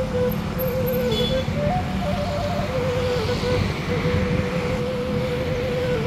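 Background music: a slow melody of long held notes that waver and step up and down, over a steady low rumble.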